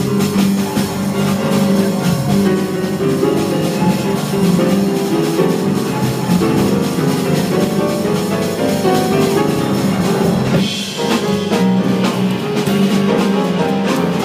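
A live jazz band playing, with piano, bass and drum kit.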